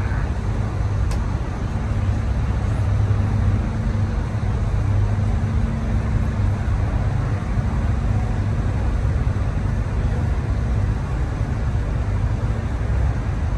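Steady low drone of a river tour boat's engine, with an even hiss over it.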